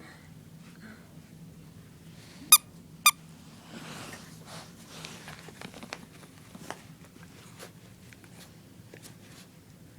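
A puppy gives two short, high-pitched yaps about half a second apart, a little over two seconds in.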